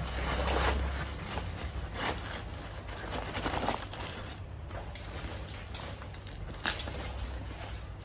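Rustling and swishing of a nylon backpack being handled: a folded garment is pushed into a side pocket, then the pack is lifted and shouldered, with one sharp click about two-thirds of the way through, over a low steady hum.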